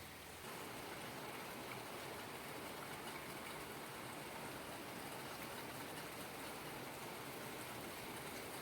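Steady rain falling: an even hiss dotted with the fine patter of drops, settling in from about half a second in.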